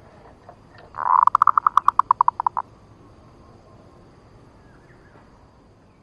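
Zebra dove (perkutut) song: a swelling first note running straight into a rapid string of about a dozen short staccato coos, lasting about a second and a half, played as a lure call for trapping wild zebra doves.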